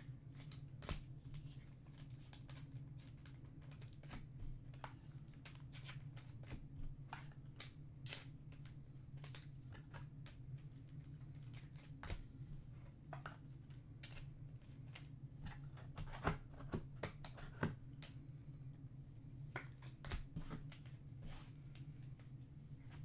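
Trading-card packs and cards being handled at a table: an irregular string of small clicks, snaps and rustles, a few louder ones a little past the middle, over a steady low hum.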